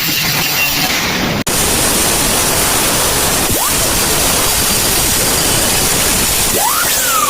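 Steady, loud grinding noise of an angle grinder cutting ceramic tile, broken by a brief cut-out about a second and a half in.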